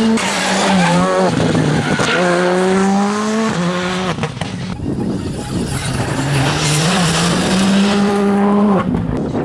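Rally cars accelerating hard past, engine note climbing and breaking briefly at each upshift, with a hiss of tyres on loose grit. Two runs with a short lull between.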